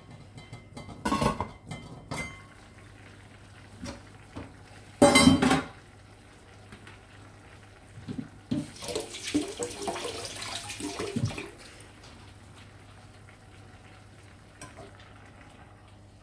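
Stainless steel pots and lids clanking on a gas stovetop: a couple of knocks near the start, one loud clang about five seconds in, then a few seconds of clattering and scraping.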